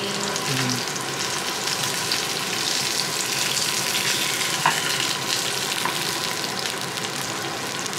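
Salmon fillet and sliced garlic sizzling steadily in hot oil in a frying pan, with a spatula turning the fish and a few sharp clicks against the pan.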